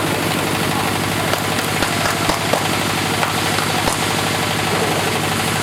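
GY-200-1A engineering drilling rig running steadily with a fast, even engine beat, and a few sharp knocks about two to four seconds in.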